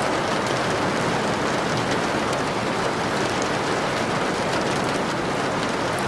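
Steady rain: an even, unbroken hiss with faint scattered drop ticks.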